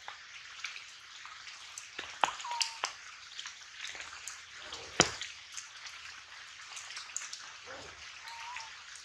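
Outdoor ambience with scattered sharp clicks and crackles, the loudest about halfway through, and two short high chirps, one about two seconds in and one near the end.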